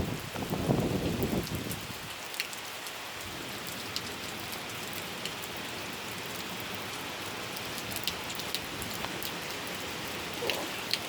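Steady heavy rain falling, an even hiss with scattered sharp ticks of drops striking nearby surfaces. A louder low rush sounds in the first second and a half.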